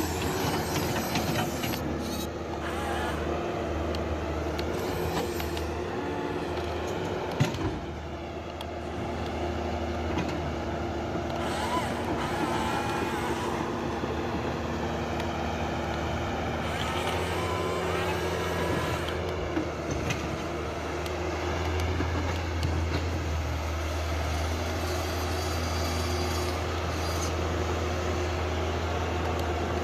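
Huina RC excavator running: its small electric motors and servos whine over a steady low hum, the whine gliding up and down in pitch now and then as the arm moves.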